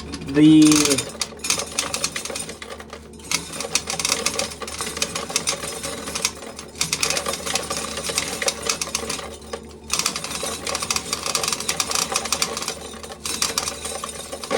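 Corn sheller rattling as ears of corn go through it, the kernels stripping off in fast clicking clatter. It comes in several runs of a few seconds with short breaks between them.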